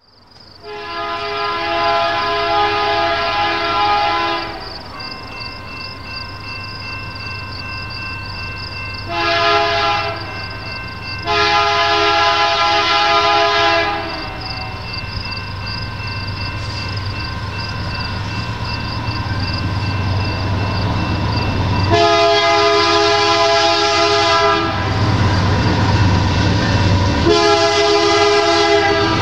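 Air horn of a Canadian Pacific GE ES44AC diesel freight locomotive sounding five blasts as the train approaches, the second of them short. Underneath, the rumble of the diesel engines grows steadily louder.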